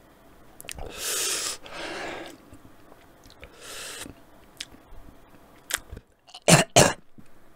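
A man breathing hard and hissing through his mouth against the burn of an extremely hot sauce, with small wet mouth clicks. Near the end come two sharp coughs in quick succession.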